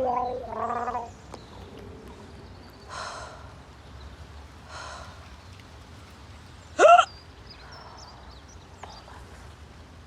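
A woman gargling, which stops about a second in, followed by a couple of soft breathy sounds, then one loud, sharp hiccup with a quick upward squeak about seven seconds in.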